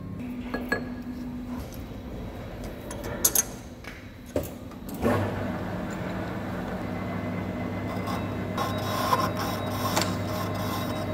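Hafco TM-26120G centre lathe starting up about five seconds in and then running steadily with a hum, after a few metal clicks and knocks; near the end the turning tool is cutting into the steel workpiece, adding a scratchy cutting noise.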